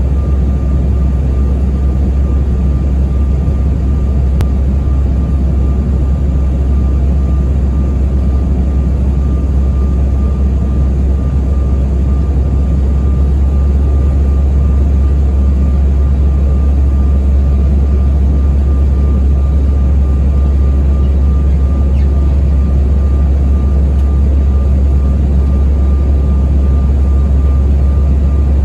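Airliner cabin noise on the approach to landing: a steady, loud low rumble of engines and airflow with a thin steady whine above it.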